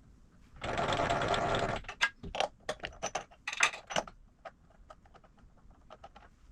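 A small motor runs for just over a second with a steady buzz and then stops, followed by a quick series of sharp metallic clicks and clinks as parts are handled.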